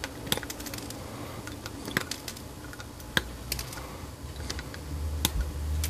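Small flush cutters snipping the trimmed leads of soldered resistors on a circuit board: a series of sharp clicks, roughly one a second.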